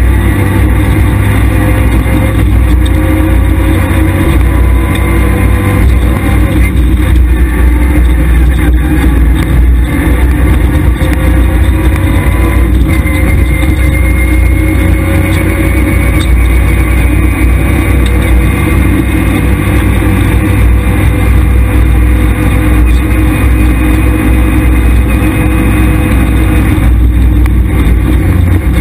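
Škoda Felicia rally car's engine heard from inside the cabin under hard acceleration, loud and continuous, its pitch climbing and dropping with gear changes over a heavy low road rumble.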